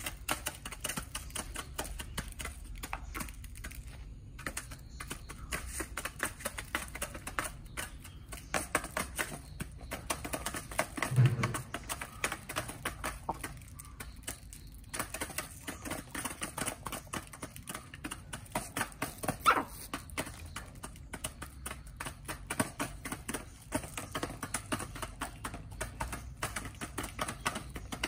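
Chickens pecking at feed, a dense, irregular run of quick beak taps on a shallow feed bowl and the dirt around it. Two louder short sounds stand out, one about eleven seconds in and one near twenty seconds.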